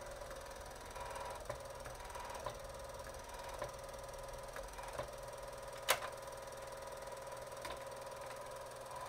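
Sony MDS-JE320 MiniDisc deck's Mitsumi sled motor running as a faint steady hum, with a few light clicks from the disc loading and front panel. The motor runs as soon as the deck is powered, when it shouldn't: this is the deck's drive fault.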